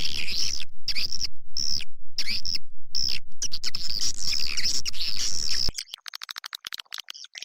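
Swiftlet-house external lure sound: recorded swiftlet chirps and twitters over a steady pulse of about six beats a second. About three-quarters of the way in, the pulse stops and quieter, rapid clicking chirps carry on.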